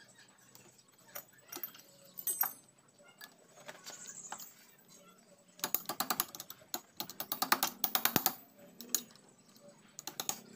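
Socket ratchet clicking as engine bolts are wound out. Scattered faint metal clinks come first, then two fast runs of ratchet clicks a little past the middle.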